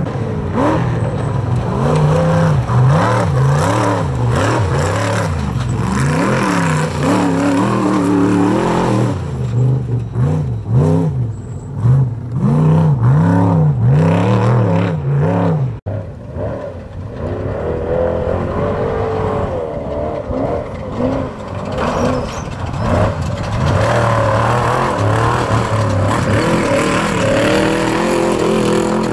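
Off-road racing trophy truck engine revving hard, its pitch rising and falling in quick repeated swells as the throttle is worked on a rough dirt climb. After an abrupt cut about halfway through, a second off-road race vehicle's engine revs the same way, climbing in pitch near the end.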